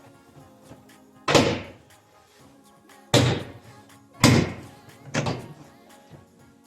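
Four heavy thunks about a second apart over steady background music.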